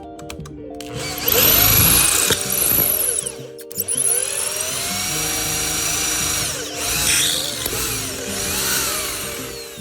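Electric drill boring out the hole in a steel motorcycle chain link plate, its motor speeding up and slowing down several times, over background music.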